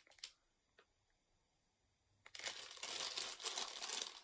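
Plastic snack wrappers crinkling as they are handled: a brief rustle at the start, a single small click, a stretch of dead silence, then steady crinkling for the second half.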